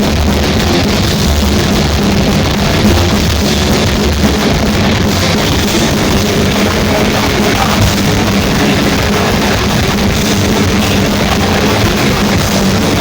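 Heavy metal band playing live: distorted electric guitars, bass and drums at a steady high volume.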